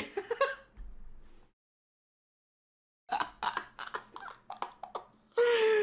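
A man laughing in short, choppy bursts, coming in after a couple of seconds of dead silence.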